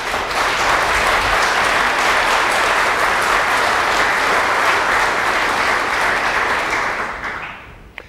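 Audience applauding steadily, the clapping dying away near the end.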